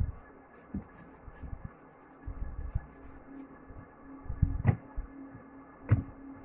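Handling noise on a hand-held phone's microphone: low bumps and rustles, with two sharp taps about four and a half and six seconds in, over a faint steady hum.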